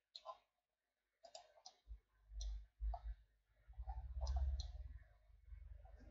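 Faint, scattered clicks of a computer mouse and keyboard being worked, about a dozen separate clicks, with a faint low rumble under them from about two to five seconds in.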